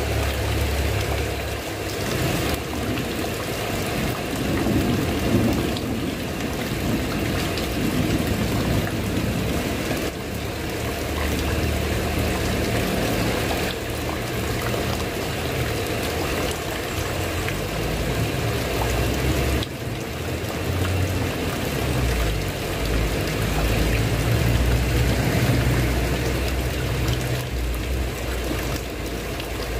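Heavy rain pouring steadily, with a low rumble of thunder coming and going underneath.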